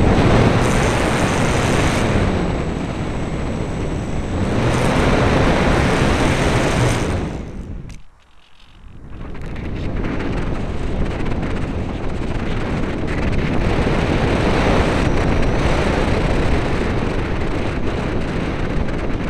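Airflow buffeting the microphone of a camera mounted on a Radian RC glider in flight, a loud, rough rushing that drops away sharply about eight seconds in and then builds back.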